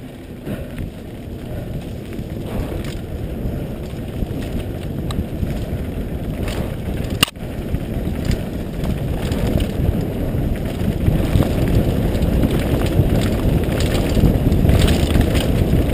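Wind rushing over a helmet-mounted camera's microphone, mixed with a mountain bike's tyres rumbling over a dirt trail on a downhill run, with scattered clicks and one sharp knock about seven seconds in as the bike hits bumps. The noise grows louder toward the end as speed builds.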